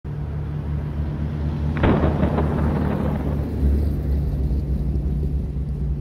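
An old car's engine running with a steady low rumble, with a louder, rougher burst about two seconds in.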